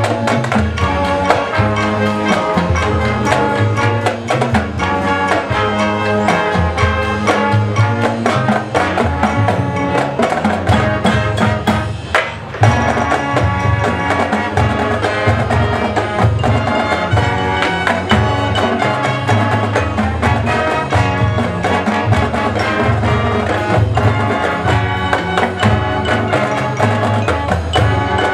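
High school marching band playing, brass over percussion, with a brief break and a sharp accent about twelve seconds in.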